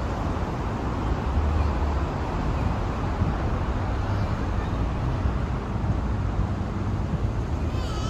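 City street ambience: a steady rumble of road traffic, with no single event standing out.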